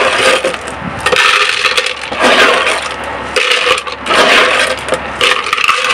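Expanded clay (LECA) balls clattering against hard plastic as they are scooped by hand from a plastic tub into a plastic scoop, in several rattling bursts.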